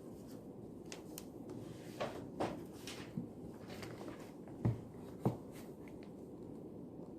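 Quiet study-room hum with a few light knocks of things being handled: two about two seconds in and two slightly louder ones around five seconds in.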